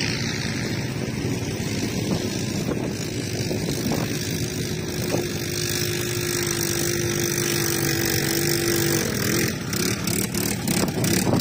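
ATV (quad bike) engine running, a steady engine noise, with a steady single-pitched whine that holds for a few seconds in the middle and a few knocks near the end.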